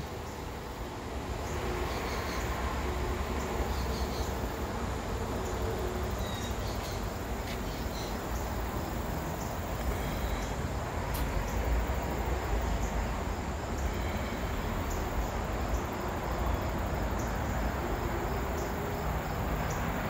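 Steady outdoor background of insects calling, over a constant low rumble.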